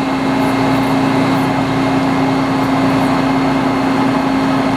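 Metal lathe running steadily under a cut, the tool machining the collar of an antique sawmill mandrel: a constant hum with a steady tone and the hiss of cutting.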